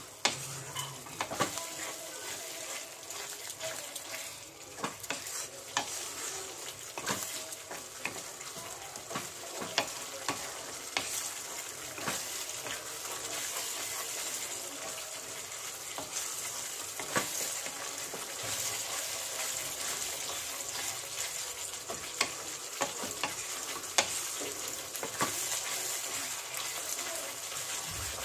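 Thick onion-tomato masala with curd sizzling steadily in a non-stick frying pan while a spatula stirs it, scraping and tapping against the pan at irregular moments.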